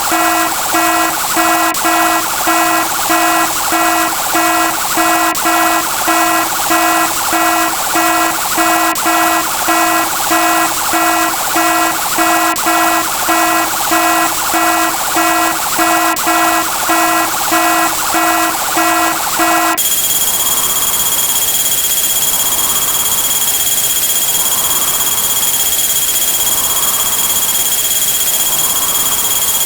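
An electronic warning-alarm sound effect, a pitched beep repeating about one and a half to two times a second. About twenty seconds in it changes to a steady high whistle with a swell that rises and falls every two seconds or so.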